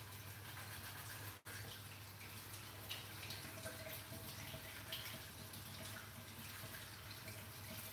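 Faint steady hiss over a low hum, with a few soft ticks: quiet kitchen room tone. The sound drops out for an instant about a second and a half in.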